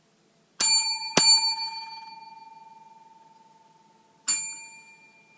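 Chrome desk bell (tap bell) struck three times: two strikes about half a second apart, then a lighter one about three seconds later, each ringing on and slowly fading. It is rung as a train's departure signal.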